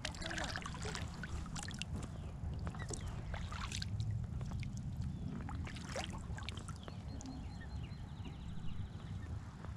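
Kayak paddle strokes: the blade dipping and water splashing and dripping off it at irregular intervals. Under them is a steady low wind rumble on the microphone.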